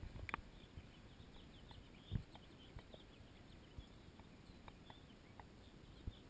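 Near silence: faint outdoor background with a few scattered soft ticks and one dull thump about two seconds in.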